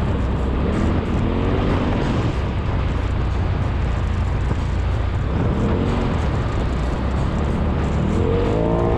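Turbocharged engine of a Polaris RZR Pro XP side-by-side revving up and easing off over a steady low drone, with rises about a second in, around six seconds and again near the end.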